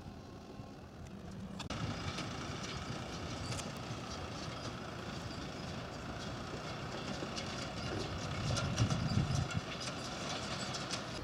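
A farm tractor's engine running as it pulls a forage loader wagon, with a steady clatter and rattle from the wagon and its drawbar. The sound starts abruptly about a second and a half in, and the low engine rumble swells around nine seconds in.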